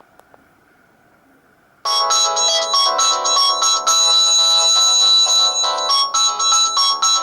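Faint hiss with two small clicks, then about two seconds in an LG GX200 ringtone starts playing through a Samsung GT-E2121B mobile phone's speaker: a bright electronic melody of quick notes with several sounding at once.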